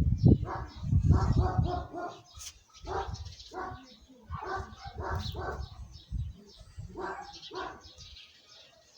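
A dog barking repeatedly in short runs of barks.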